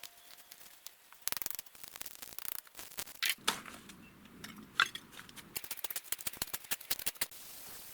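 Quick, irregular clicks and light knocks in clusters, starting about a second in and stopping shortly before the end.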